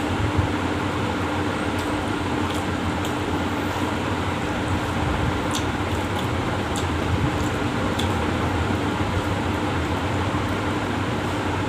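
Steady machine hum with a low drone, over faint small clicks and wet squishes as fingers mash rice soaked in water in a metal plate.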